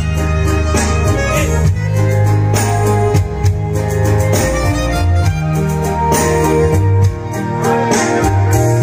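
Music played loud through a pair of tall stacked loudspeaker towers with subwoofers, heavy bass under a melody line.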